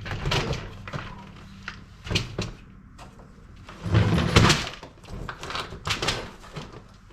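Rummaging: a run of knocks and clatters as objects are picked up, moved and set down, the loudest knock about four seconds in, over a steady low hum.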